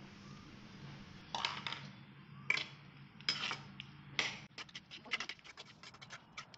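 Perforated stainless-steel spatula scraping and knocking against a nonstick kadai as rice balls are tossed in tamarind paste: a few separate scrapes about a second apart, then quicker clattering strokes from about halfway.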